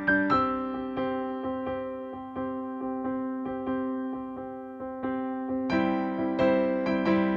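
Background music: an electric piano playing a gentle melody of evenly paced notes, which grows fuller near the end.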